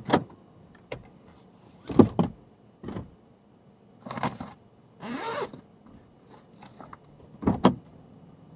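Handling noises of an insulated food-delivery bag on a car seat: a series of knocks and thumps, with a short rasp about five seconds in as the bag is opened.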